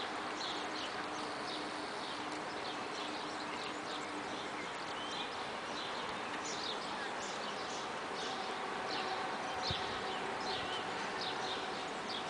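Small birds chirping in short, quick, repeated calls over the steady hiss and faint hum of a rail yard, where an ÖBB class 1216 electric locomotive is slowly hauling a freight train out.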